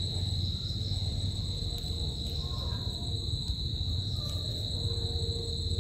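Insect, likely a cricket, chirring in one continuous high-pitched tone, over a low steady hum.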